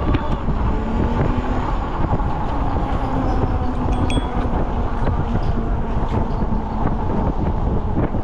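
Steady rush and rumble of wind on the microphone while riding an electric bike, mixed with road and traffic noise.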